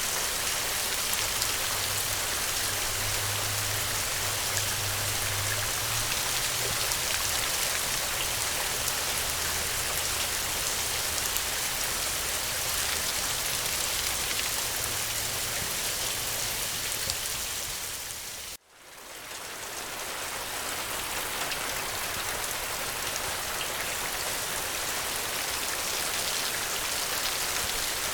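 Steady rain falling, a dense even hiss of drops. About two-thirds of the way through it dips briefly almost to silence and swells back, like a loop splice in the recording.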